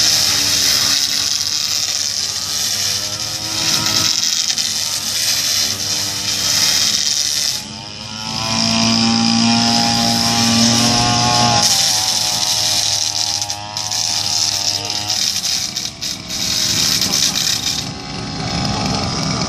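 Two-stroke brush cutter engine running at high revs, its pitch rising and falling as the throttle is worked, with a short drop in loudness about eight seconds in. Near the start the spinning blade grinds against the pavement.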